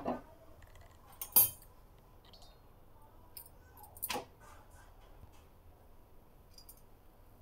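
Sharp metal clinks and clatters of a frying pan and a flat metal spatula against a gas stove's burner grate, three strikes with the loudest about a second and a half in, with quiet between.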